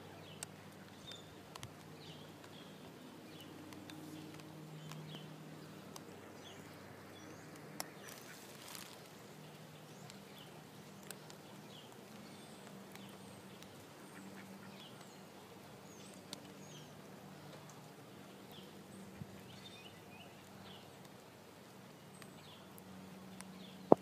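A mallard drake and hen feeding on concrete pavement: faint short calls and scattered clicks over a steady low hum, with one sharp knock at the very end.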